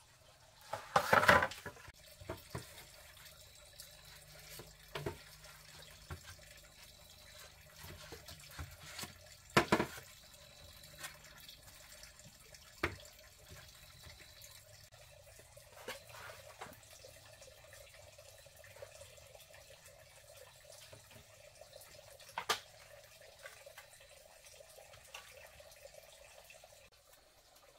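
Split bamboo strips and poles knocking and clattering now and then as they are handled and laid onto a bamboo frame, loudest about a second in and near ten seconds, over a faint steady hiss.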